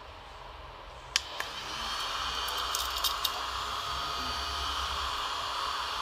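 Mini desk vacuum cleaner's small motor running with a steady whir. A click a little over a second in is followed by a louder whir, and a few sharp ticks come around three seconds in.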